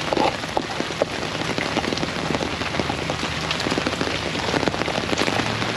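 Heavy rain hitting an umbrella overhead: a dense, steady patter of drops with many sharp individual hits.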